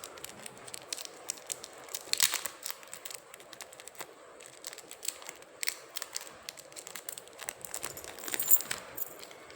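Coin packets crinkling and rustling as they are handled and opened, with scattered light clicks and clinks of the coins.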